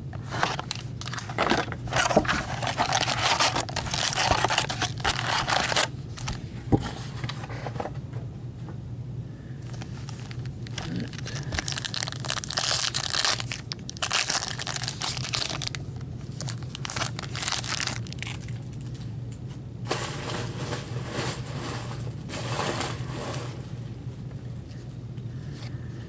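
A trading card box is cut open with a box cutter and card packs are torn open by hand. Several rough bursts of tearing, scraping and wrapper crinkling come with short pauses between them, over a low steady hum.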